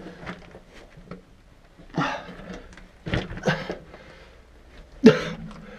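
A person breathing hard in a few loud, short huffs, the loudest near the end with a brief grunt.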